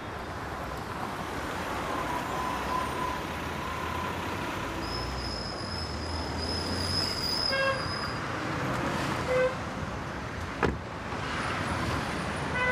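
City street traffic: cars driving past steadily, with a few short car-horn toots near the middle and at the end, and one sharp knock about two-thirds through.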